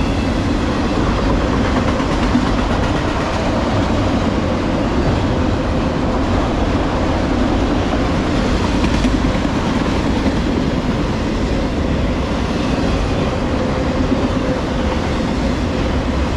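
Empty autorack freight cars rolling past at speed: a steady rumble and clatter of steel wheels on the rails, with a faint steady tone running through it.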